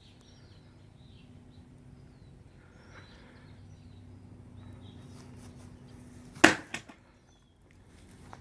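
A single hard blow of a war hammer striking a target about six and a half seconds in, sharp and loud, with a brief rattle after it. Before the blow there are faint bird chirps and a low steady hum.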